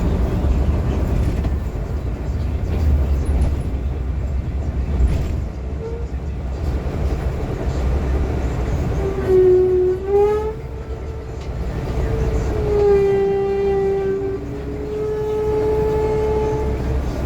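City bus running with a low engine rumble. From about nine seconds in it gives out a terrible squeak: three long, whale-like wailing squeals that glide in pitch.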